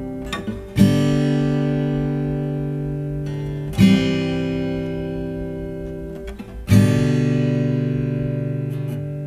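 Background acoustic guitar music: slow strummed chords struck three times, about three seconds apart, each left to ring and fade.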